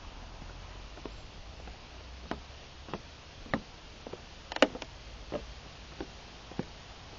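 Footsteps on a boardwalk of loose wooden planks, a short knock at each step, about one and a half a second. A little past halfway comes a louder clatter of several knocks close together.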